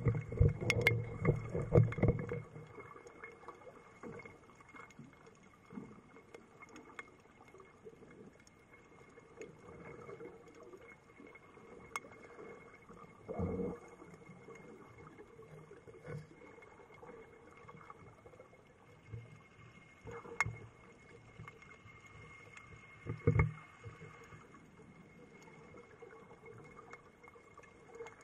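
Underwater sound heard through a camera's waterproof housing: a loud churning of water and bubbles for the first two seconds or so, then faint, steady water noise with a few dull knocks later on.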